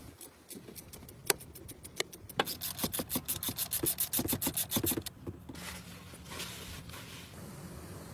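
Hand tool work on the car: scattered clicks, then a fast even run of sharp clicks, then a rubbing scrape near the end.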